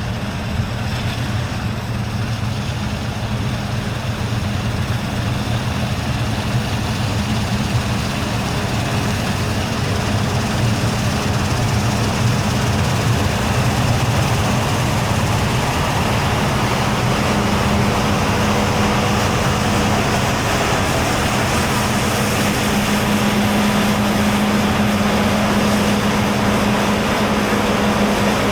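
Diesel engine of a large harvest machine running steadily, a continuous drone with a low hum, a little louder from about ten seconds in.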